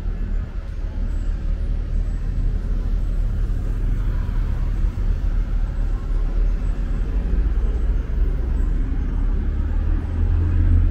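Road traffic: motor vehicle engines running close by, a steady low rumble that grows louder near the end.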